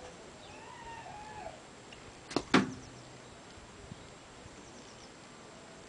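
A faint drawn-out call, rising then falling in pitch, near the start. Then two sharp clicks about a fifth of a second apart, about two and a half seconds in; these are the loudest sounds.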